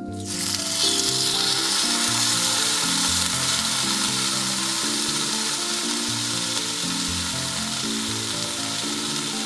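Slices of beef tongue sizzling on a hot oiled cast-iron griddle plate: the sizzle starts suddenly as the meat goes down, is loudest in the first couple of seconds, then eases slightly into a steady fry.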